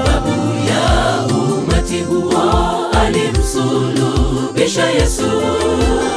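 Gospel choir singing a Swahili song over backing music with a steady drum beat.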